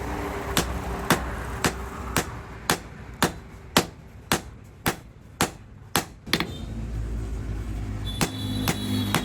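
Hammer blows on steel at an anvil while forging, sharp evenly paced strikes about two a second: a dozen in a row, a pause of about two seconds, then a few more near the end. A low steady hum runs underneath.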